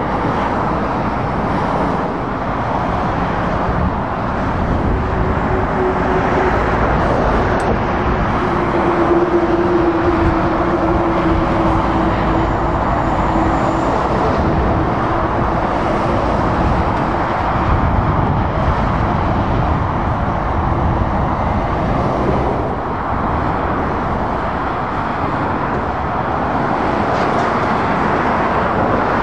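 Lorries and cars passing on a motorway: a steady rush of tyre and engine noise. A low drone from a passing vehicle stands out for several seconds near the middle.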